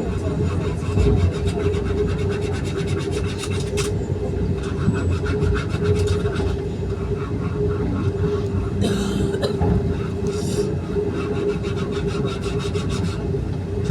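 Cabin noise inside a Vande Bharat electric train running at speed: a steady low rumble with a constant hum and fast fine rattling. There is a sharp click about four seconds in and two short hisses a little past the middle.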